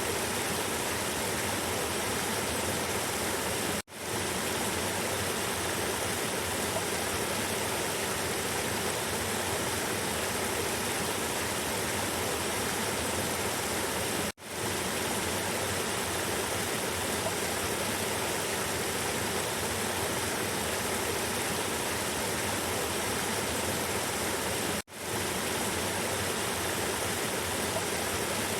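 River water rushing with a steady, even roar, broken three times, about ten seconds apart, by a brief drop to near silence that swells back in.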